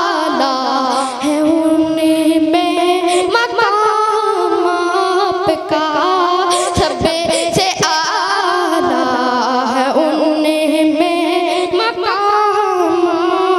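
A boy singing a naat (Urdu devotional hymn) unaccompanied into a microphone, in long, wavering held notes that bend up and down.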